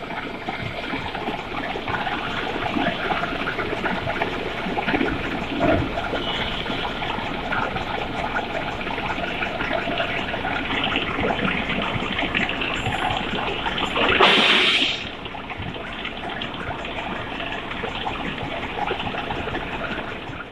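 Milling head of a large planer-type milling machine face-milling a metal shredder grate, a steady rushing grind of the cutter through the metal. About two-thirds of the way through, a louder hissing burst lasts about a second.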